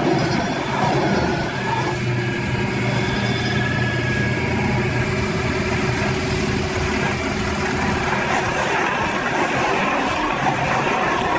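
John Deere 7730 tractor engine running steadily, driving a stump cutter.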